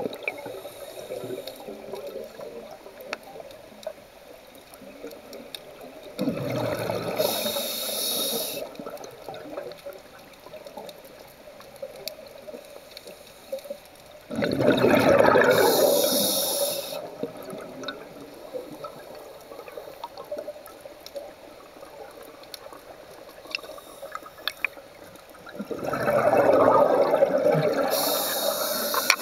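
Scuba diver exhaling through a regulator underwater: three bursts of bubbles, each two to three seconds long, several seconds apart, with quieter underwater noise between.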